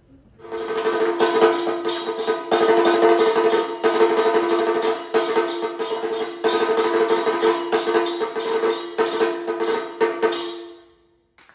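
Live traditional Kerala percussion accompaniment: fast, dense drumming with jingling metal percussion over a steady held tone, stopping suddenly about a second before the end.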